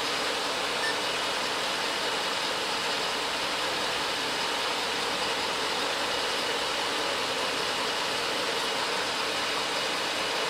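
Steady rushing of a Ford F250's climate-control blower running on max AC inside the cab, with the engine idling underneath.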